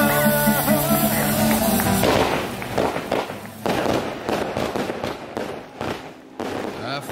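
Fireworks going off in a dense, rapid string of crackling pops and bangs, starting as background music cuts off about two seconds in.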